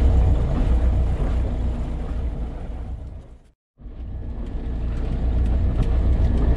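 Steady low rumble of a small boat's engine running, with faint steady tones above it. It fades out to silence about halfway through and fades back in a moment later.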